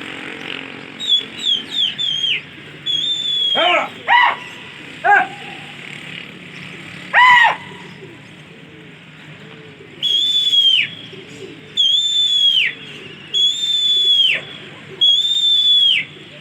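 A pigeon flier whistling to his flock in the air: first a quick run of short shrill whistles, then several long high whistles, each held and then dropping sharply in pitch at the end. A few short, lower calls come in between.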